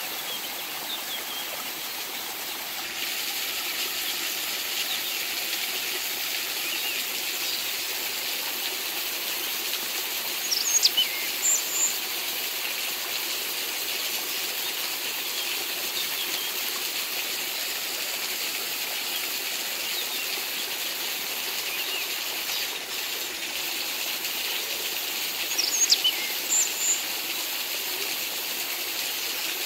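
Water pouring steadily from a small pipe onto mud and stones, a little louder from about three seconds in. Twice, about a third of the way in and again near the end, short high descending bird chirps cut through the water noise.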